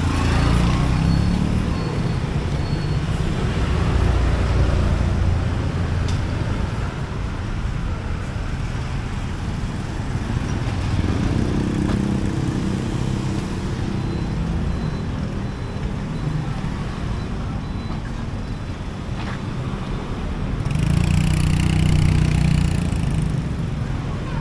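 Road traffic: motor vehicle engines running past in a steady rumble that swells several times, loudest as one vehicle passes close near the end.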